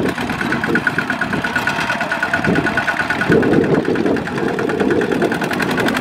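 Two-wheel walking tractor's single-cylinder diesel engine running with a fast, even knock while it hauls a trailer loaded with rice sacks, growing a little louder about three seconds in.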